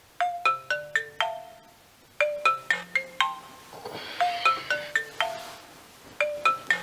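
Music: a bright melody of struck, quickly decaying notes on a marimba-like mallet instrument, played in short phrases. A soft rushing swell rises and fades about four seconds in.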